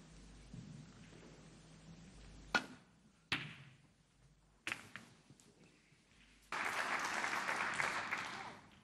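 Snooker balls clicking: the cue tip strikes the cue ball, followed by the sharp clack of ball on ball and a few lighter ball contacts. About two seconds later comes a spell of audience applause.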